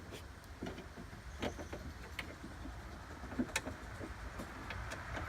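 Scattered light clicks and taps of metal and plastic as the door-handle linkage rod is worked into its plastic retaining clip inside a pickup truck door, over a steady low rumble.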